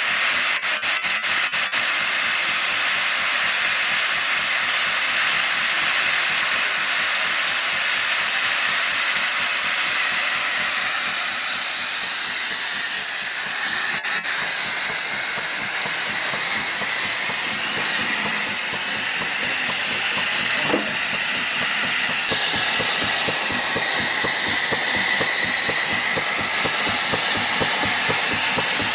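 Stationary steam engine running under steam: a loud, steady hiss of escaping steam with the engine's fast, even exhaust beat running through it.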